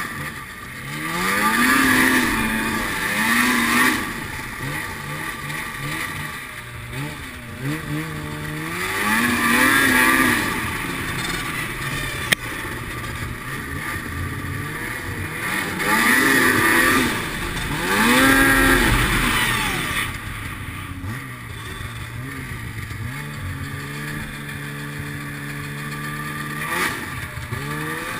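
Snowmobile engine revving up and easing off in about four surges, then holding a steadier lower pitch for several seconds before picking up again near the end. A single sharp knock about twelve seconds in.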